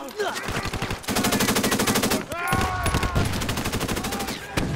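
Automatic weapons fire in a film battle: scattered shots, then a long, fast, even burst about a second in, followed by more shots.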